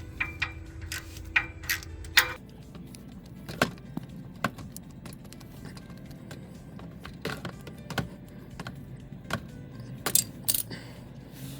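Scattered metallic clicks and clinks of a ratchet, socket and steel bolts as the oil filter housing bolts are loosened and taken out, with faint music underneath.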